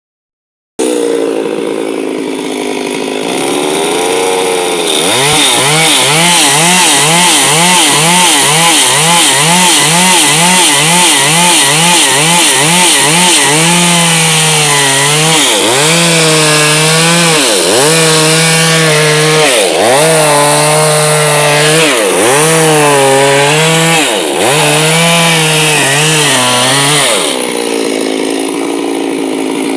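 Chainsaw engine running: it idles, then revs up and down in quick pulses about twice a second. It is then held at high revs, its pitch sagging every couple of seconds as it labours in a cut, and drops back to a low idle near the end.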